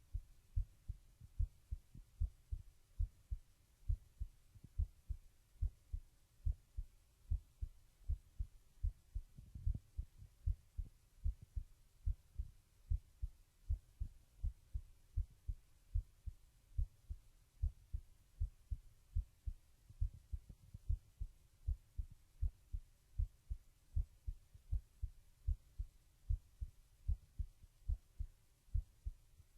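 A teenage boy's heartbeat picked up by a webcam microphone: low, evenly spaced thumps in a steady rhythm.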